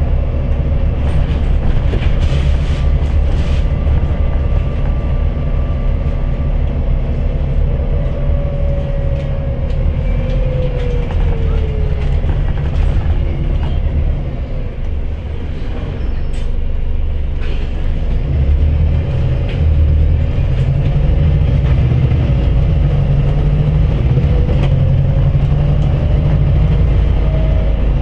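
Inside a moving city bus: a steady low engine and road rumble with rattles from the body and fittings. A drivetrain whine falls in pitch about ten seconds in as the bus slows, dips briefly in the middle, then climbs steadily in the second half as the bus gathers speed.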